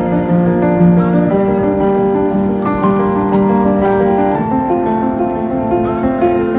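Background music: a slow piano melody over sustained chords.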